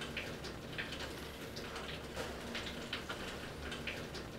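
Quiet room tone: a steady low hum with faint, scattered soft ticks.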